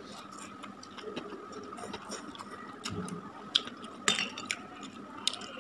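Metal fork clinking against a ceramic plate while twirling and lifting instant fried noodles, with about three sharp clinks in the second half.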